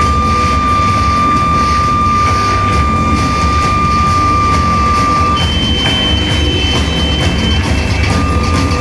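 Live harsh noise music: a loud, dense wall of noise with a steady high whining tone held for about five seconds, then a higher whining tone taking over for about two seconds.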